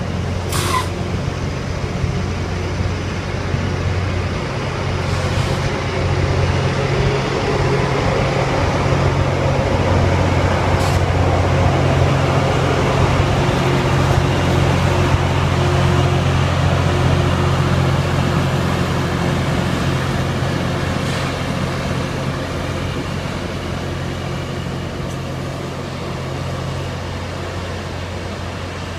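Loram rail grinder train rolling slowly past, its diesel engines running with a steady low drone that grows louder toward the middle and eases off near the end. A brief high sound falling in pitch comes just after the start.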